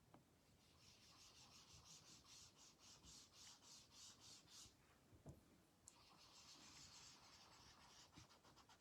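Faint, quick rubbing strokes of a foam ink dauber over card stock, about four or five strokes a second, in two spells with a short pause between.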